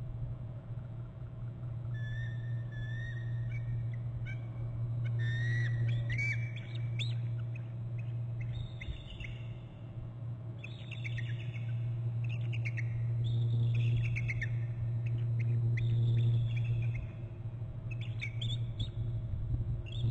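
Pair of bald eagles trilling in repeated runs of high, falling chittering notes at another eagle flying past, over a steady low hum.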